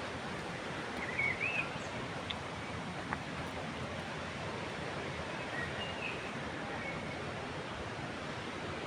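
Waterfall rushing steadily, with a bird chirping briefly about a second in and again faintly near six seconds.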